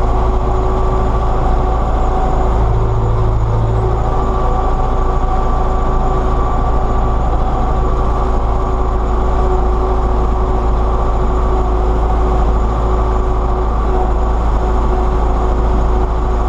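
MTZ-82 tractor's four-cylinder diesel engine running steadily under load, heard from inside the cab while pulling a disc harrow across the field.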